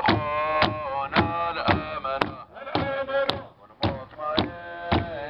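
A singing voice over a steady drum beat, about two beats a second, the voice holding long notes between the beats.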